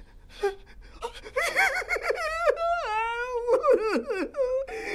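A person's high-pitched wailing moan. It starts about a second and a half in with short pulsing cries, then goes into long wavering notes that slide up and down in pitch.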